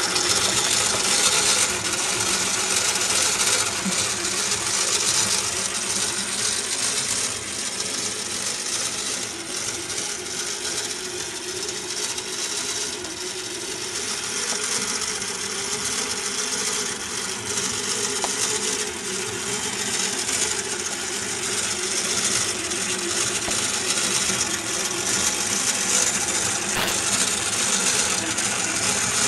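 Metal Merkur construction-set model of a single engine cylinder running, its crankshaft, camshaft, pushrods and rocker arms clattering and rattling steadily.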